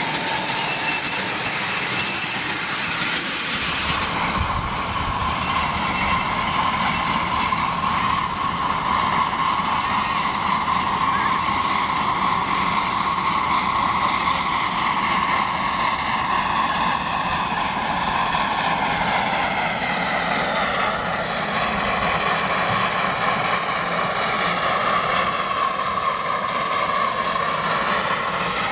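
Miniature steam train hauling loaded ridecars along a 7¼-inch gauge track, its wheels rolling on the rail. A steady drone runs under it, its pitch wandering and slowly falling in the second half.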